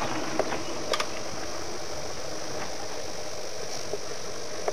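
An engine idling steadily, with a couple of faint clicks about a second in.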